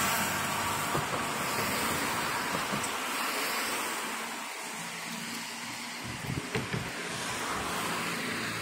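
Street traffic: noise from a passing car fades away through the first few seconds, leaving a steady traffic hum, with a few soft low knocks about six seconds in.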